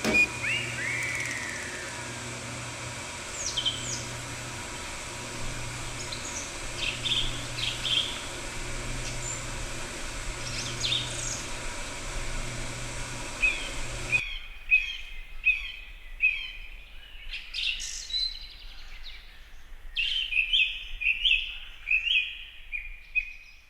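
Small wild songbirds chirping and calling, short notes and quick downward-sweeping calls over a steady background hum. About halfway through the hum drops out and a run of rapid, repeated chirps follows.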